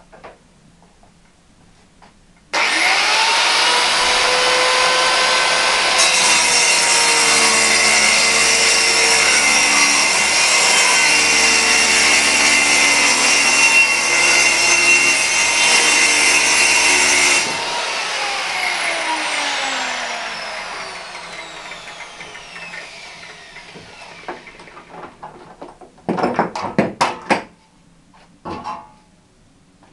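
Handheld circular saw starting up with a rising whine and cutting through a sheet panel for about fifteen seconds, then switched off and winding down with a falling whine. A few sharp clattering knocks near the end.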